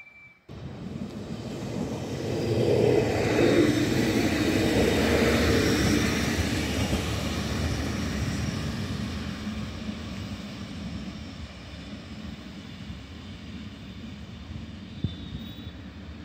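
Red regional electric multiple-unit train passing close by on the near track: rumble and wheel noise build quickly, are loudest a few seconds in, then slowly fade as the train runs away toward the station.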